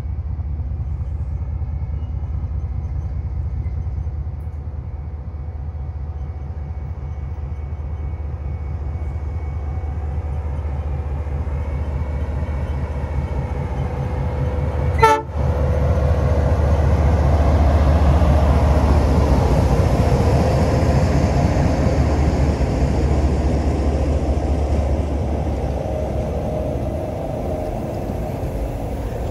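Freight train's diesel-electric locomotives approaching and passing, a steady low rumble that grows loudest just after the halfway point as the locomotives go by, then the boxcars rolling past. A sharp knock sounds just before the locomotives pass.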